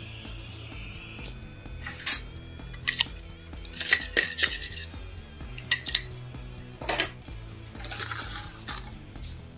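Freshly printed PETG parts being pried off a metal 3D-printer bed with a scraper: a string of sharp clicks and clinks as the blade and the parts strike the bed and pop loose, then a short scrape about eight seconds in. Background music plays throughout.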